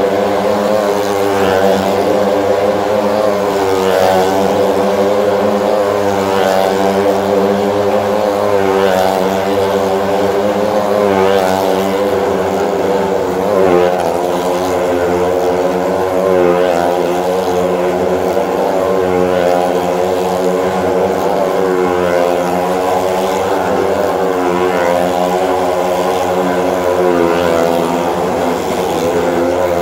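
Motorcycle engines running hard as the bikes circle the wall of a wooden well-of-death drum. The pitch swells and dips about every two and a half seconds with each lap.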